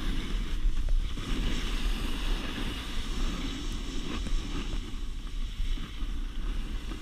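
Wind buffeting the camera's microphone while riding downhill, a steady low rumble, with the continuous hiss of snowboards sliding and scraping over packed snow.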